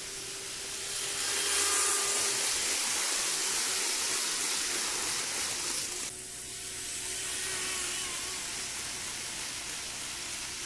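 Kato N-scale 500 Series Shinkansen model train running on its track: a loud, steady whir of the small motor and wheels with a hiss over it. It swells about a second in, as the train comes close, and drops back about six seconds in.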